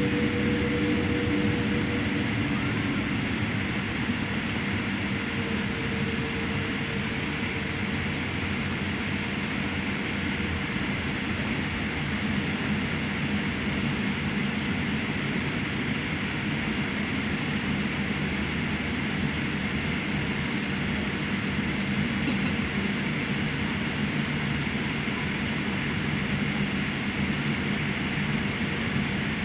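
Steady jet engine and airflow noise inside the cabin of a Boeing 787-8 airliner, a low drone with no let-up. A faint higher tone fades out in the first few seconds.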